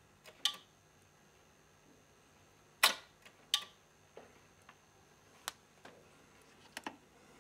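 Scattered sharp clicks, about ten in all and the loudest about three seconds in: a turntable's motor being switched off and on, and a push button on the speed-control box being pressed.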